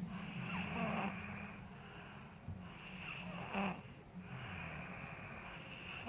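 A young woman snoring heavily in deep sleep, with a snore about every two and a half seconds.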